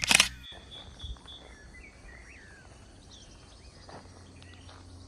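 Outdoor ambience: a steady high insect trill with a few short bird chirps over it. A quick run of shutter-like clicks ends right at the start.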